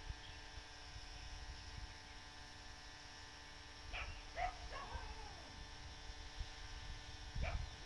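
A dog barking and yelping a few times: short barks about four seconds in, a drawn-out falling yelp just after, and another bark near the end, over a steady faint hum.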